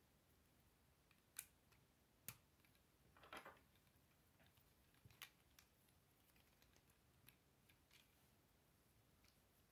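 Faint clicks and rubbing of plastic Lego bricks being handled and pressed together: a few sharp clicks, with a short scraping rattle a little after three seconds.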